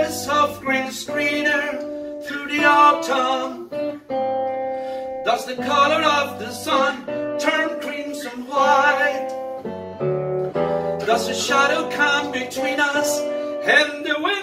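A man singing a slow melody to a picked acoustic guitar accompaniment, with a short guitar-only passage about ten seconds in.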